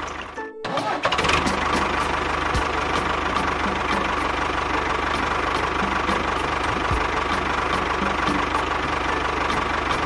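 Small tractor engine running steadily, with a regular tick about three times a second. The sound cuts out briefly about half a second in.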